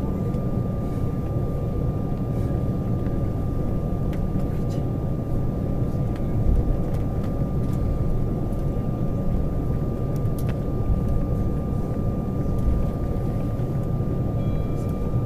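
Cabin noise of an Embraer 190 taxiing after landing: its CF34 turbofan engines running at low power over a steady low rumble, with a thin steady whine and an occasional light click.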